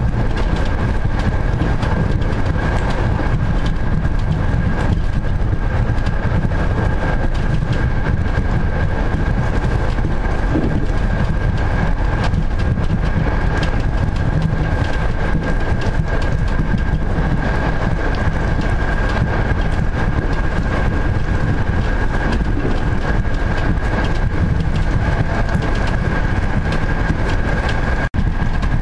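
Passenger train running along the track, heard from inside the carriage: a steady rumble of wheels on rails with a constant high whine over it. The sound drops out for an instant near the end.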